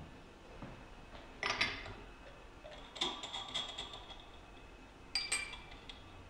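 Metal clinks as the clamping nut is spun off its stud and the clamp plate is handled on top of an aluminium workpiece: three short bursts of clinking, the middle one ringing on for about a second.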